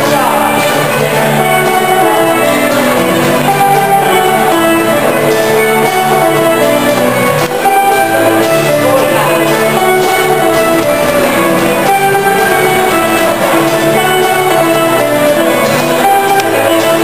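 Live ceilidh band playing a steady, lively polka tune for a couple dance.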